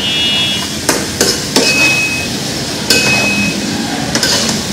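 A metal spatula knocking and scraping against a metal cooking pan, about five sharp knocks, some leaving a short high ring from the pan, over a steady hiss.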